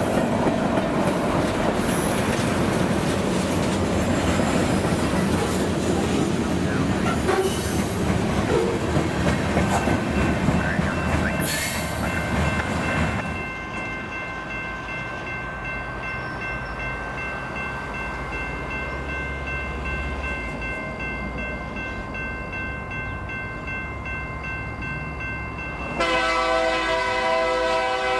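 Freight cars rolling past close by with wheel clatter and rumble. They give way to the quieter rumble of a pair of approaching EMD GP50 locomotives, whose horn sounds loudly about two seconds before the end.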